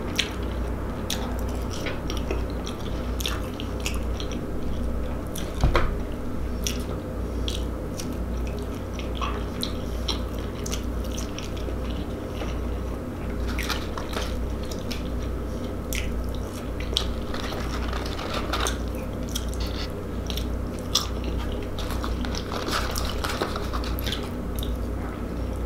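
Close-miked chewing of French fries dipped in ketchup: many small wet clicks and smacks of the mouth, one louder click about six seconds in. A steady low hum runs underneath.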